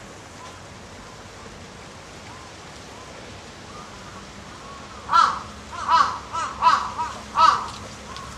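A crow cawing five times in quick succession, starting about five seconds in, over a faint steady outdoor background.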